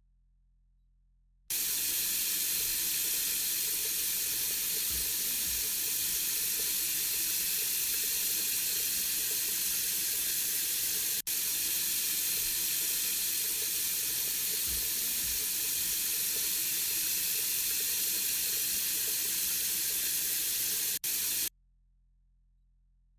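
LG washing machine taking in water at the start of a Quick 15 cycle: a steady rush of water through the inlet valve into the drum that switches on abruptly, drops out twice for an instant, and shuts off abruptly after about twenty seconds.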